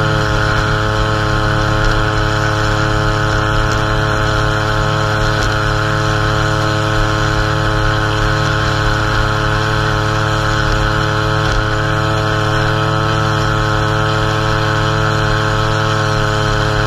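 String trimmer running steadily at high speed, its line edging the turf along a concrete sidewalk: a constant engine whine.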